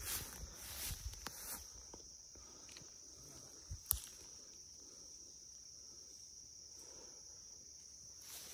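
Insects singing in a steady, high, even drone. For the first second and a half, footsteps rustle and plants brush past someone walking through tall weeds, and a single sharp click comes about four seconds in.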